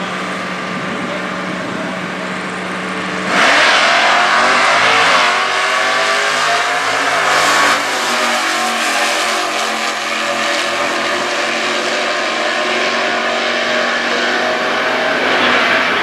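Two Stock Eliminator drag cars' engines are held at steady revs on the starting line. About three seconds in they launch hard and run at full throttle down the strip, the pitch rising and dropping back at each gear change.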